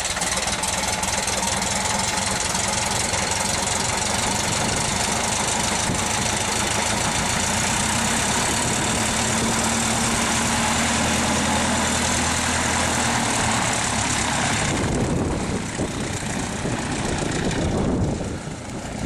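A 1946 Piper J-3 Cub's light-aircraft engine and propeller running steadily and loudly at close range. The sound thins out and changes about 15 seconds in.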